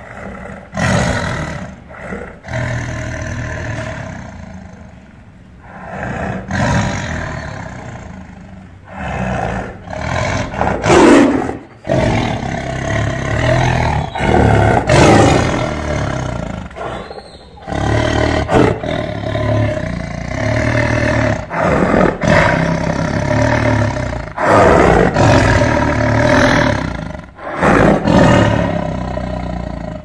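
Tiger roaring and growling: a long series of loud calls, one after another with short breaks between them, the loudest about eleven and fifteen seconds in.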